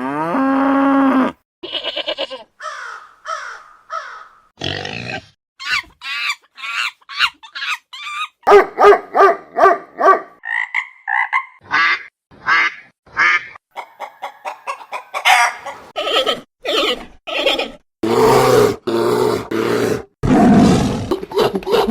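A quick succession of different animal calls spliced together with abrupt cuts: a drawn-out pitched call at the start, then chirps, short squeals and rapid repeated calls, and rough, louder grunting calls near the end.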